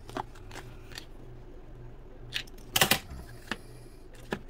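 Scattered clicks and taps from hands handling a small plastic toy boat hull and its lid, with the loudest cluster of clicks about three seconds in, over a steady low hum.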